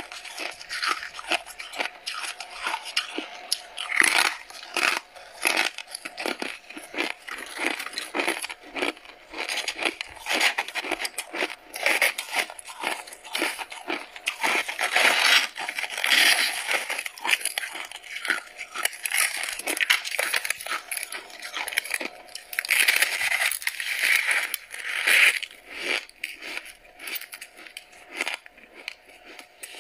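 Freezer frost crunching and crackling without a break: a chunk bitten and chewed at first, then frost broken and scooped out of a chest freezer by hand, in many small cracks and crunches.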